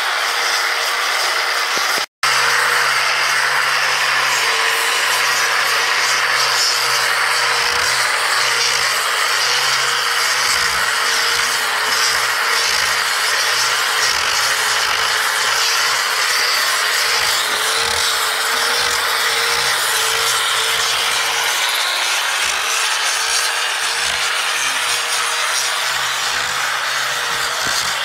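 Angle grinder with a sanding disc running steadily against wooden logs, the abrasive grinding over a motor whine that wavers slightly as the disc is loaded. The sound drops out for a split second about two seconds in.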